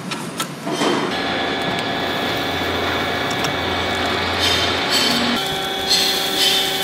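Steady machine hum of a metal workshop, with several held tones, while a steel band saw blade is worked onto the wheels of a metal-cutting band saw. There are a few metal clicks in the first second, and the hum shifts about five seconds in.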